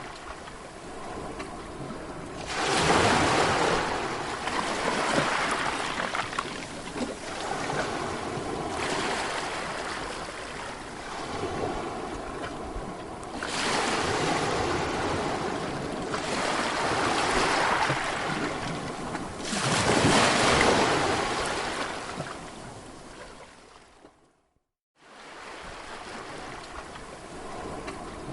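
Sea waves washing in, a steady rush of surf that swells into louder breaking surges every few seconds. The sound cuts out for a moment about 24 seconds in, then the waves start again.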